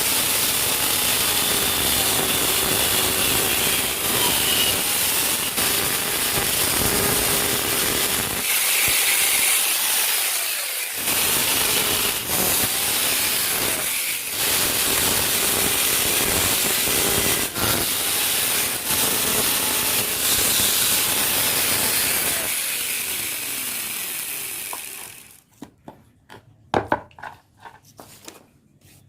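Wood lathe spinning a sappanwood blank while a turning tool cuts into it, making a loud continuous scraping. The cut eases off briefly around nine to eleven seconds in and stops about 25 seconds in, followed by a few light knocks.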